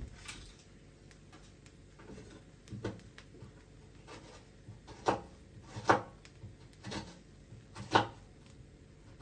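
A handful of short kitchen knocks and clunks, such as utensils or cookware being handled, spaced a second or more apart over a faint background. The loudest come in the second half.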